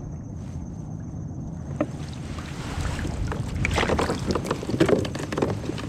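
Steady wind rumble on the microphone, then from about two seconds in, water splashing and sloshing with irregular hard knocks as a fish-measuring board is wetted.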